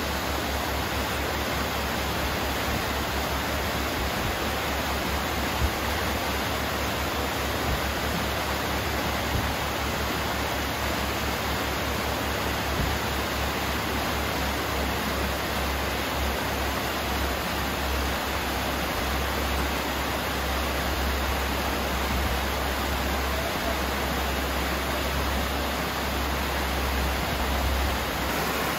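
Alder Creek, running high with snowmelt, rushing and cascading down over granite rock: a steady, dense rush of water with a low rumble underneath.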